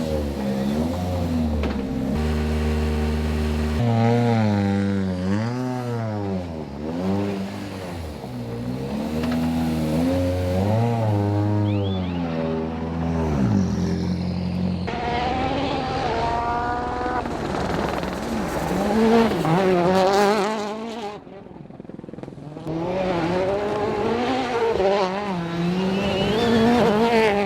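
Citroen DS3 WRC rally car's 1.6-litre turbocharged four-cylinder engine revving hard, its pitch climbing and dropping again and again as it shifts gears and lifts off. The sound changes character about halfway through.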